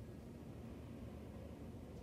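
Wind blowing outside, heard from indoors as a faint, steady low rumble.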